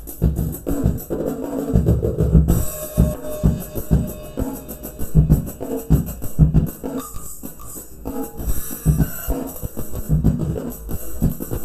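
Drum kit with a box bass drum played in a steady groove: frequent low thuds from the box bass drum with snare hits. Cymbals join in about two and a half seconds in.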